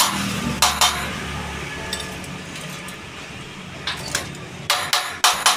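Sharp metal-on-metal clinks on stainless-steel tube and sheet, as parts of a steel gate are handled and set up for welding: one about half a second in, then a quick run of about five near the end, over a low steady hum.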